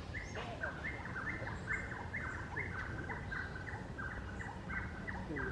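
Bicolored wren (chupahuevos) singing: a fast, steady run of repeated stepped notes.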